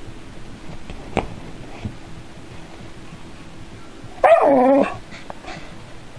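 A dog gives one drawn-out bark about four seconds in, falling in pitch, after a single sharp click about a second in.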